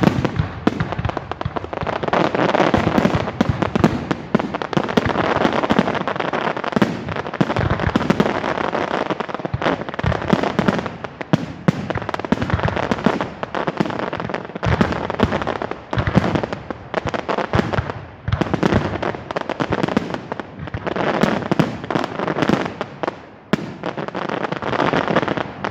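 Fireworks display: a dense, continuous barrage of bangs with crackling in between, falling away abruptly at the very end.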